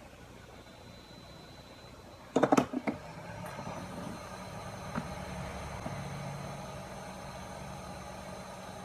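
A few sharp clicks about two and a half seconds in, then a hot-air rework station blowing with a steady rushing noise and a faint whine, as it heats solder paste on a stencil to form the balls on a phone IC.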